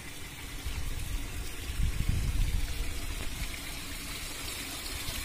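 Muddy rainwater running off a dirt road and pouring into a hole in the grassy verge: a steady trickle, with a low rumble that swells about two seconds in.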